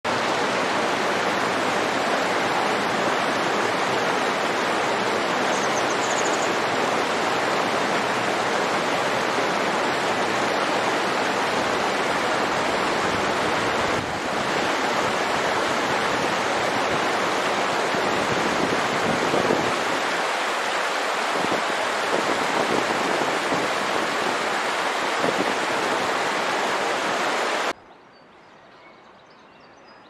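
Shallow mountain stream rushing and splashing over boulders: a loud, steady rush of water. It cuts off abruptly near the end, leaving only a faint background.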